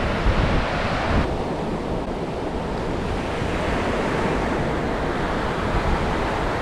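Ocean surf breaking and washing up the beach, with wind buffeting the microphone. The higher hiss of the surf drops away about a second in.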